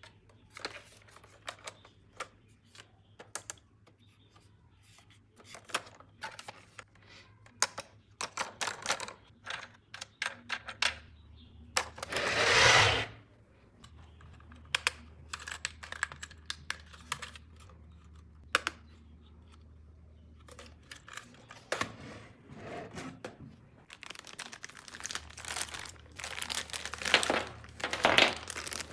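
Hands opening and handling toy packaging: a run of small clicks and taps, one louder tearing rustle lasting about a second near the middle, and dense crinkling and clicking near the end, over a faint steady low hum.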